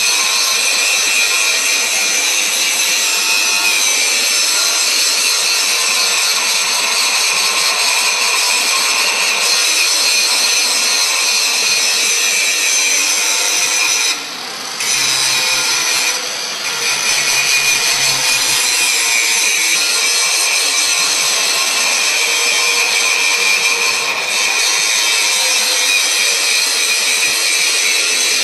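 Electric arc welding: a steady, loud crackling hiss from the welding arc. It breaks off briefly twice about halfway through, as the arc is stopped and struck again.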